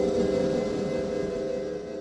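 Designed cinematic drone effect: several steady held tones over a noisy rush, slowly fading out.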